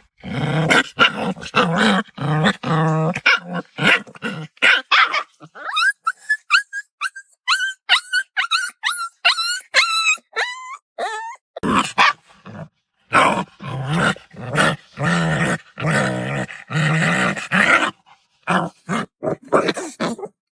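A puppy growling and barking in quick repeated bursts. In the middle comes a run of short high yelps, each dropping in pitch, before the growling barks start up again.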